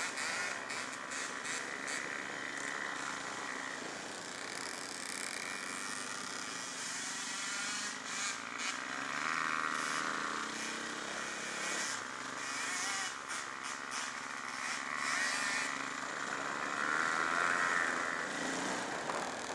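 Dirt-bike engine running under way on a rough trail, its pitch rising and falling as the throttle changes, heard from a camera mounted on the bike, with frequent knocks and rattles from the bumpy ground.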